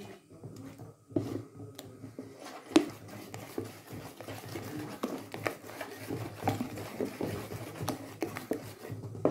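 Metal ladle stirring runny crêpe batter in a metal mixing bowl: a continuous swishing of the batter with irregular light clicks and scrapes of the ladle against the bowl. The batter is being thinned with water before cooking.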